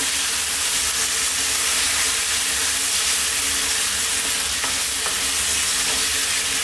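Goat heart strips sizzling in a nonstick wok as they are stirred and tossed with a spatula: a steady frying hiss with a few soft scrapes of the spatula against the pan.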